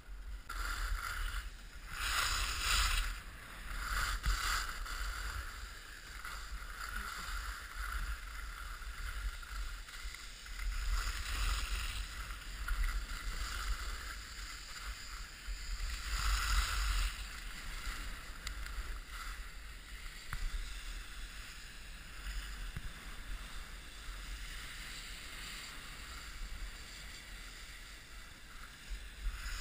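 Skis hissing and scraping over groomed snow, swelling several times as the skier turns, over a steady low rumble of wind on the microphone.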